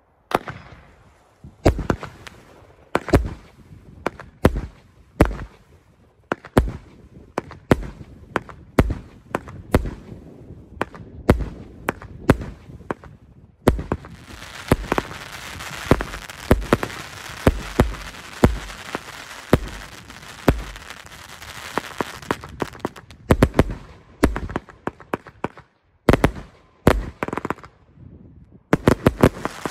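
A 56-shot, 1.2-inch fireworks cake firing: a long run of sharp shots and bursts, about one or two a second, with a dense crackling hiss for several seconds in the middle of the run.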